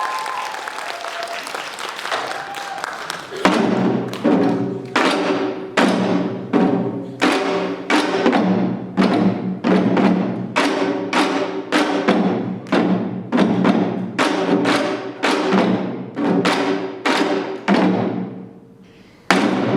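Janggu (Korean hourglass drums) in a seated seoljanggu piece: a dense roll, then from about three seconds in, heavy evenly spaced strikes about twice a second, and after a short pause near the end, one last sharp strike.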